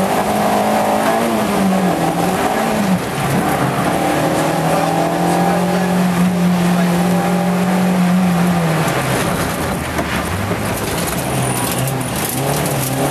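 Peugeot 205 1.6 GTI's four-cylinder engine heard from inside the cabin, revving hard through the gears. The pitch dips briefly about a second in and again about three seconds in, holds high for several seconds, falls about nine seconds in, and climbs again near the end.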